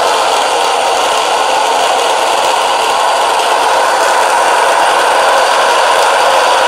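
KoMo Fidibus electric stone mill with corundum-ceramic millstones, running steadily and grinding grain into flour: a loud, even grinding noise.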